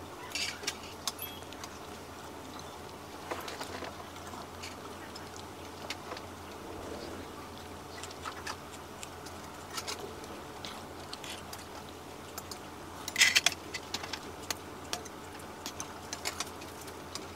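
Stainless steel chopsticks and spoon clinking against stainless steel bowls while eating, in scattered light taps with a louder run of clinks about thirteen seconds in, over a steady low hum.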